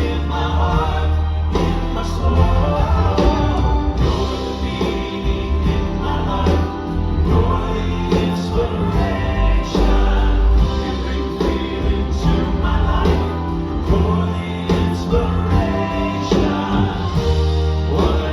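Live band music with a steady beat and a male gospel vocal group singing in harmony.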